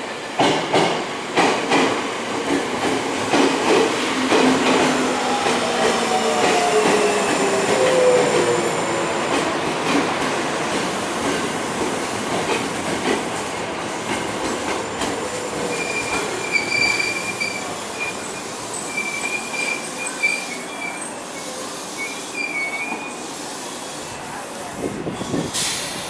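Electric commuter train slowing into the station: clacks of the wheels over rail joints at first, then a falling whine as it decelerates, and a high squeal as it draws to a stop.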